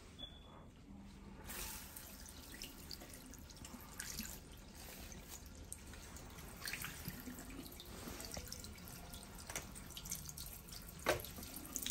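Tap water running and splashing into a ceramic salon wash basin and over a gloved hand, starting about a second and a half in.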